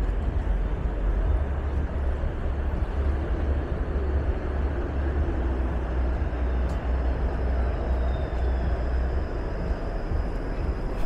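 Steady street noise of downtown traffic, with a deep continuous rumble of passing vehicles. A faint high whine comes in about seven seconds in.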